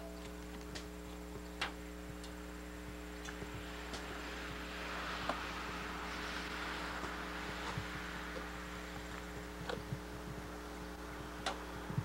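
Rasping scrape of Peel Away paint-remover paper and softened paint being peeled and scraped off wooden siding, strongest from about four to eight seconds in, with scattered light clicks. A steady electrical hum runs under it.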